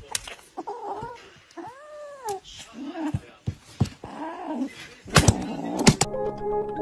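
A domestic cat meowing: about four drawn-out yowls that rise and fall in pitch, the longest about two seconds in. A few sharp knocks come near the end.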